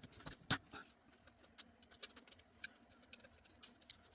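Irregular light clicks and taps of small tools and parts being handled on a smartphone under repair, with the sharpest click about half a second in.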